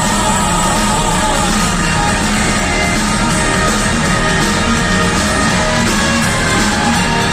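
A band playing a rock arrangement of the song, with electric guitar and a singing voice, loud and continuous.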